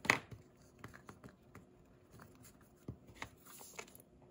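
Metal book rings being opened and fitted through the holes of a journal's chipboard cover: one sharp click right at the start, then light clicks and taps of paper and board being handled.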